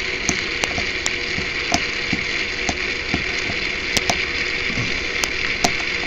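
Small hobby servo motor whirring steadily, with irregular light clicks as keypad keys are pressed.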